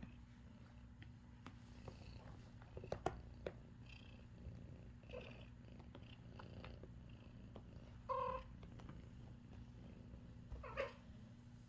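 Cat purring steadily, with a few short, high kitten mews, the loudest about eight seconds in and the last near the end. A few light clicks about three seconds in.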